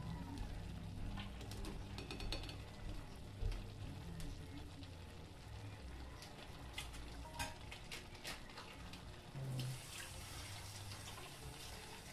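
Light clicks and rustles of kitchen handling over a low steady hum, then a short burst of water running from a tap about ten seconds in.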